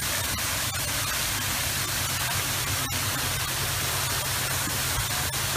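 Large outdoor fountain's tall water jet spraying and falling into its basin: a steady rushing hiss.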